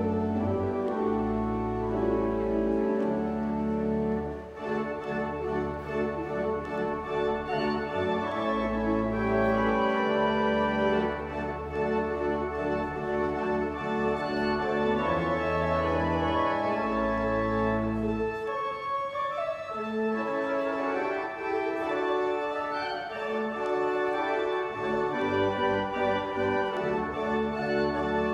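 Pipe organ playing a slow piece in held chords over long, low pedal notes. The low bass drops out for several seconds about two-thirds of the way through, then returns.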